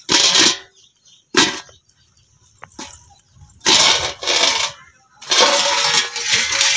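Embossed steel plate used as a lid scraping and clinking against the rim of an aluminium cooking pot as it is slid off, in several short scrapes, the longest near the end with a faint metallic ring.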